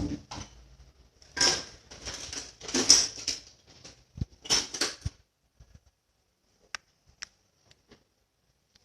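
Slime being squished and poked by hand: several short wet, crackly bursts in the first half, then a few isolated sharp clicks.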